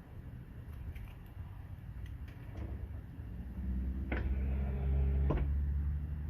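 Light clicks and knocks of a car door latch and lock actuator assembly being handled and worked loose inside the door, with two sharper clicks in the second half over a low hum that swells in.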